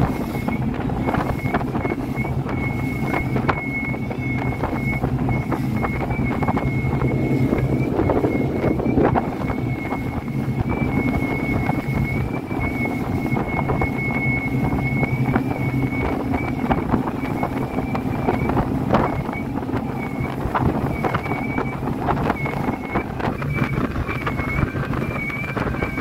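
Rigid inflatable speedboat's engine running steadily under way, with a steady high whine. Wind buffets the microphone and there are frequent short knocks.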